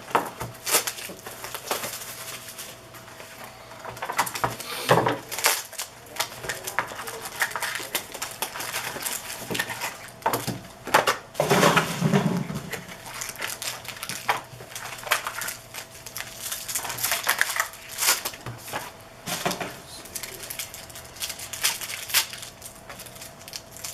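Trading card packs and card boxes being opened and handled: rustling wrappers, cardboard, and a run of sharp clicks and taps as the cards are sorted on a table.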